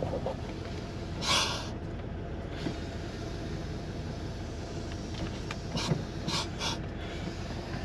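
1984 Ford F-150's carbureted 302 V8 idling steadily, heard from inside the cab. Short hisses come as the brake pedal is pressed, once about a second in and a few times around six seconds: a major vacuum leak from the brake booster.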